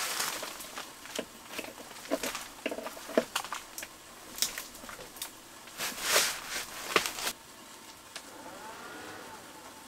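Handling noise: an irregular run of clicks, knocks and rustles as equipment on a case is handled, stopping about seven seconds in. Near the end a faint tone comes in that wavers up and down.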